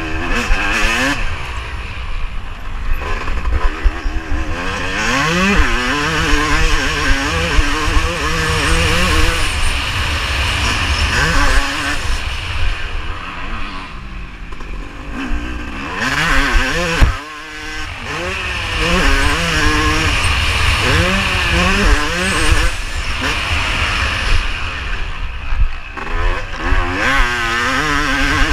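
Yamaha YZ250 two-stroke motocross engine racing, its revs climbing and falling again and again as the rider works the throttle and gears, with wind rumbling on the on-board camera's microphone. The revs drop away briefly about two-thirds of the way in.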